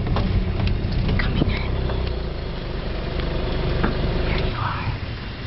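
Safari vehicle engine running, with scattered knocks and rattles from the vehicle on a dirt track. The low rumble eases about two seconds in.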